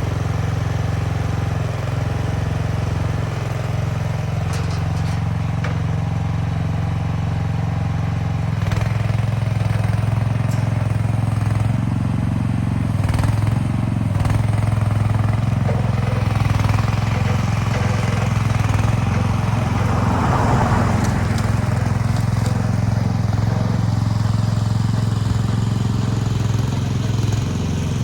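Chinese mini skid steer's small engine running steadily while the machine is worked, getting a little louder about a third of the way in, with a few short clanks and a brief scraping rush past the middle.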